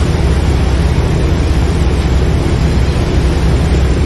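A boat's engine running steadily with its churning wake: a loud, even, low drone and water noise.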